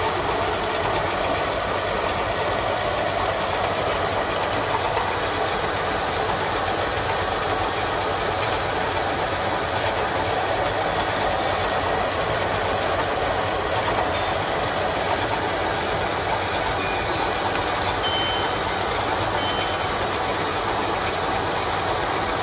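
Metal lathe running steadily, an even, dense mechanical noise from its metal gears with no pauses or strokes.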